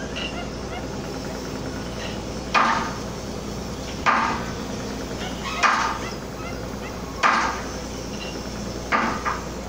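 Heavy hammer blows, five of them about one and a half seconds apart, each ringing out briefly, the last with a lighter follow-up knock. Under them runs the steady drone of the ship's engine.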